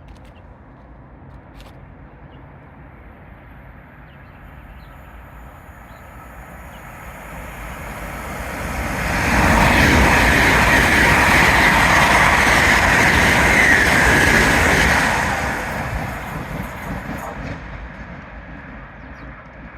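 Express passenger train passing at speed: the noise builds over a few seconds, stays loud for about five seconds as the train goes by, then fades away.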